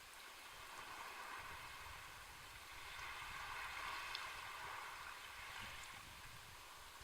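Sea waves washing in: a quiet, even rush of water that swells to a peak about halfway through and then eases off.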